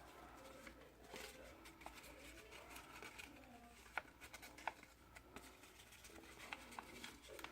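Near silence with faint handling of card stock as small folded pieces are pressed along their score lines, with a few soft ticks a few seconds in.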